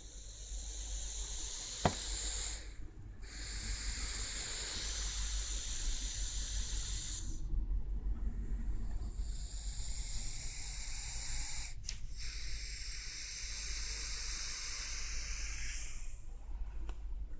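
A sleeping dog snoring: slow, hissing breaths several seconds long, separated by short pauses.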